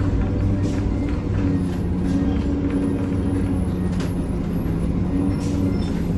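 1993 Gillig Phantom transit bus under way, heard from inside the cabin: a steady low drivetrain hum with a loud grinding noise, which the owner suspects is coming from the Allison B400R transmission.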